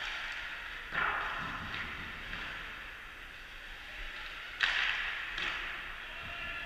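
Ice hockey play echoing around an indoor rink: a steady wash of skate and arena noise, broken by two sharp cracks with a ringing tail, about a second in and again past four and a half seconds.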